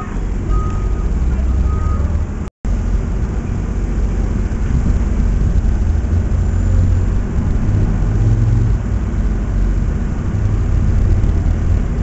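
Tracked excavator's diesel engine running steadily with a low rumble, and a reversing alarm beeping twice in the first two seconds. The sound cuts out for a moment about two and a half seconds in.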